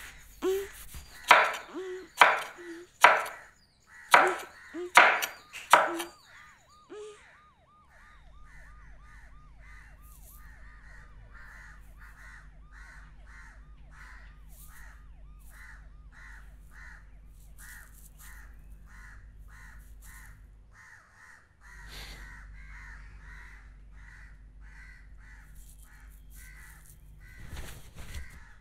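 Crows cawing, about six loud calls in quick succession, then stopping. After that a low steady hum with a soft regular pulsing about twice a second.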